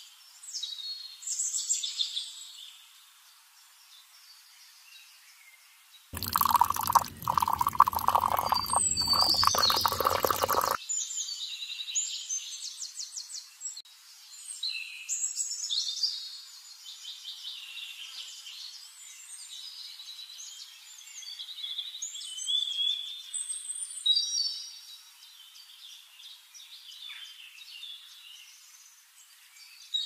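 Small birds chirping and tweeting on and off, with a stretch of splashing, pouring water about six seconds in that lasts some four seconds.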